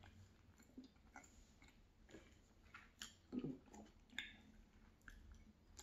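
Faint close-miked chewing of a mouthful of cheeseburger, with scattered small mouth clicks and a couple of louder clicks about three and four seconds in.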